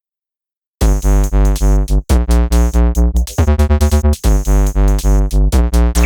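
Electronic intro music with a synthesizer and a steady drum-machine beat, starting a little under a second in after a moment of silence.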